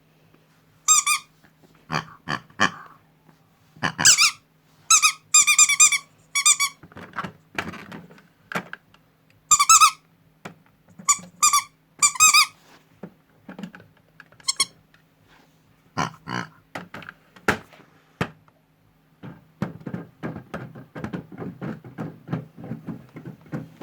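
Short runs of high-pitched squeaks and scattered clicks and knocks, over the steady low hum of a toy washing machine's small motor.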